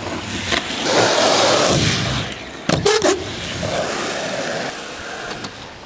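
Skateboard wheels rolling over asphalt, a rough steady rumble, with a few sharp clacks of the board a little under three seconds in.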